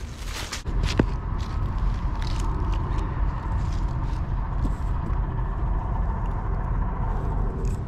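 Footsteps crunching through dry leaves and brush, cut off under a second in by a steady low rumble with a faint hum and a few small clicks.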